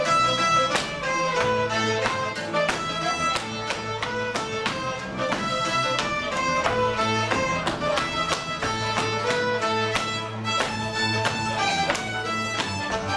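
Live Hungarian folk string band, violins over a double bass, playing dance music for a couple's jumping dance, with a steady pulsing beat.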